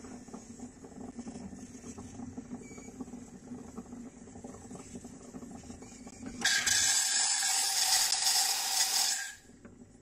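De'Longhi Stilosa espresso machine's steam wand opened: a loud, steady hiss of steam starts abruptly about six seconds in, runs for about three seconds, then is shut off.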